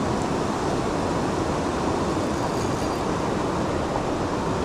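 Steady rushing of a trout stream's water over a riffle: an even hiss with a low rumble underneath.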